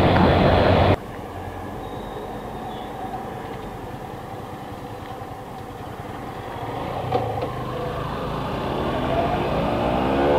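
KTM Duke 390 single-cylinder engine, heard from the rider's seat. For about the first second it is loud under heavy wind rush at speed, then it drops suddenly to a low, quiet running while the bike slows to a crawl. Near the end the engine revs up with rising pitch as the bike pulls away.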